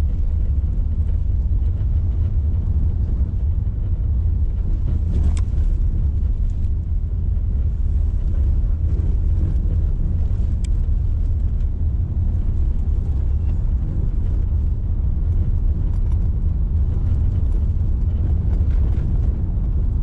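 Renault car driving, heard from inside the cabin: a steady low rumble of engine and tyre noise. A light click comes about five seconds in and another about ten seconds in.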